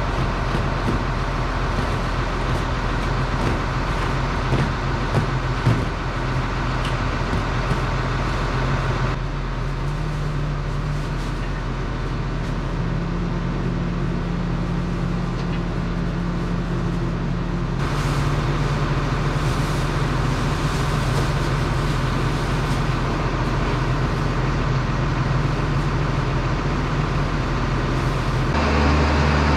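Tractor engine idling steadily, a low hum that shifts slightly in pitch about nine and eighteen seconds in.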